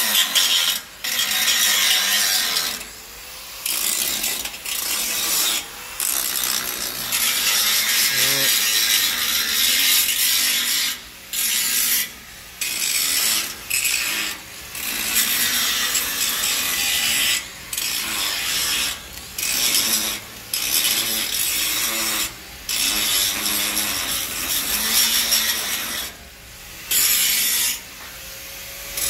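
Handheld angle grinder cutting into a light steel roof-truss frame: a loud, hissing grind that stops and starts again many times, with brief pauses every second or two.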